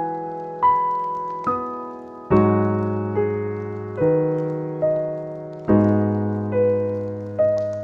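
Solo piano playing a slow, calm melody, one note or chord struck about every second and left to ring and fade, with deeper bass chords coming in twice.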